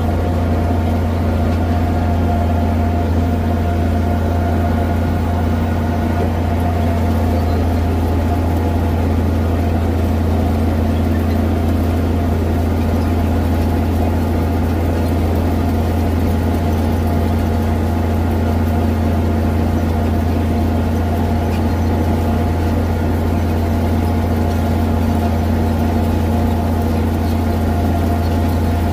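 Farm tractor engine running at a steady speed, heard close up from the hood beside the exhaust stack: a constant low drone that holds an even pitch throughout.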